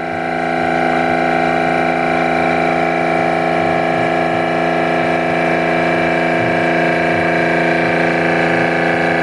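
Wall-mounted electric pressure washer motor and pump running steadily under load, a steady hum with several even tones that builds over the first second. It runs only while the spray gun is open and shuts off when spraying stops.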